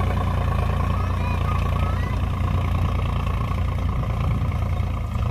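Diesel tractor engine running steadily with a low drone as it pulls a seed drill, sowing wheat into a harvested paddy field.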